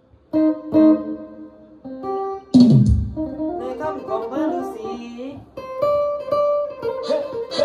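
Phin, the Isan three-string lute, plucked in quick melodic runs. About two and a half seconds in there is one loud low boom that falls in pitch.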